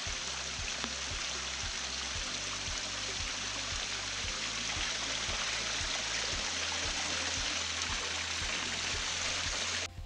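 Small waterfall running down a rock face and splashing into a pool, a steady rush of falling water that cuts off suddenly near the end. Faint background music with low bass notes plays underneath.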